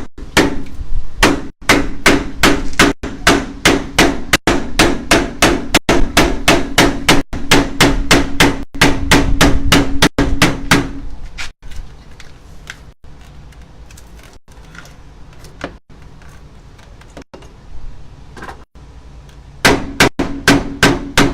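Hammer blows on a wooden block held against a new window frame, driving the frame into its opening: fast, even strikes about three a second for roughly eleven seconds, a pause, then another quick run of blows near the end.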